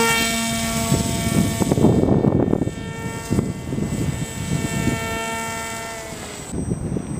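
Homemade foam RC delta-wing plane's motor and propeller whining at a steady pitch in flight, with gusty wind noise on the microphone. The whine fades and cuts off near the end.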